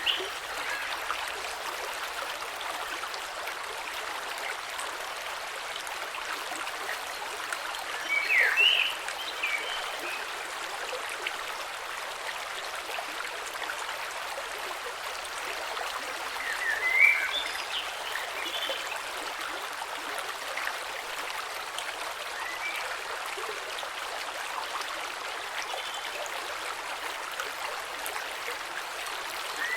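Gentle creek flowing steadily, an even rush of running water over stones. Twice, about a third of the way in and again past halfway, an animal gives a brief burst of short high calls over the water.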